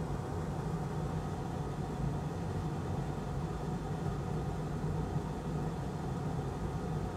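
Steady low machine hum with a hiss, holding level throughout.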